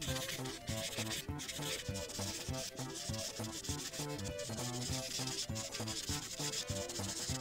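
Prismacolor brush-tip marker scrubbing back and forth on paper in quick repeated strokes, filling in a large area of colour.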